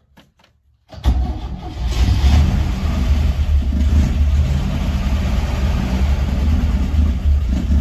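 A 1970 International Scout's engine being started on the key after an oil change: a loud, steady low rumble begins about a second in, after a couple of faint clicks.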